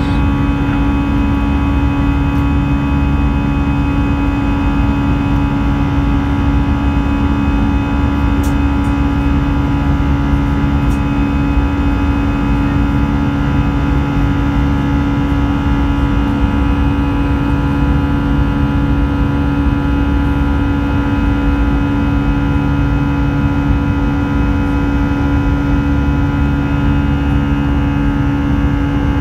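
Cabin noise of an Airbus A320-200 in the climb, heard beside its CFM56-5B turbofan engine: a loud, steady drone with a strong low hum and several higher fan tones over rushing air.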